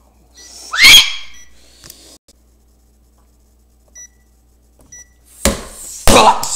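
Microwave oven keypad beeping a few times as its buttons are pressed: short, high single-tone beeps about a second apart. A loud rising squeal comes about a second in, and loud rough handling noise comes near the end.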